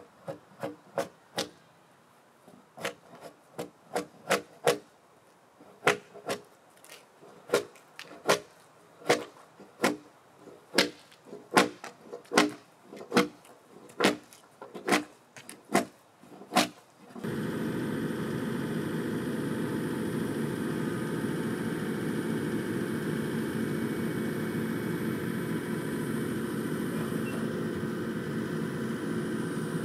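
About two dozen sharp hammer blows on wood over some seventeen seconds, irregularly spaced, often in quick pairs or runs. They stop abruptly and a steady, even mechanical drone takes over for the rest of the time.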